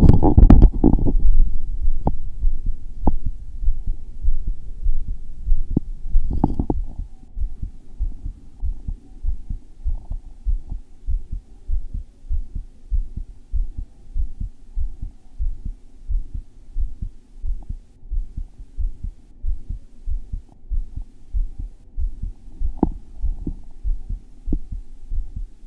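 A man's heart beating hard and thumpy, picked up by a microphone strapped against his chest: a long run of steady, evenly spaced low thumps. Loud rubbing in the first second and a few sharp clicks over the next several seconds come from the microphone being handled and adjusted.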